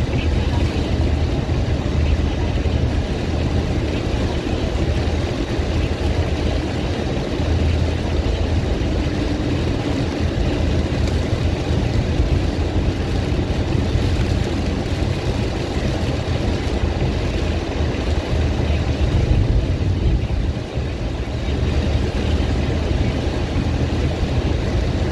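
Steady driving noise inside a moving car's cabin on a rain-soaked highway: engine drone and tyres running on wet pavement, with a brief dip about twenty seconds in.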